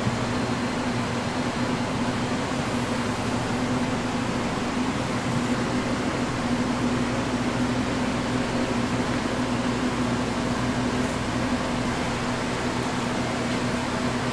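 A machine motor running steadily: an even hum under a rushing noise.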